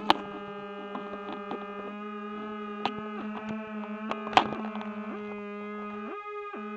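Electronic drone music: a steady low humming tone with stacked overtones, and higher tones that shift and bend in pitch above it. Sharp clicks cut in just after the start and about four seconds in, and the low tone drops out briefly near the end.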